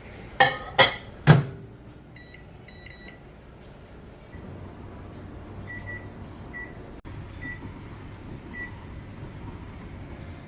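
Microwave oven being used: three sharp knocks, the last loudest, then a few short high beeps, and from about four seconds in a steady low hum as the oven runs.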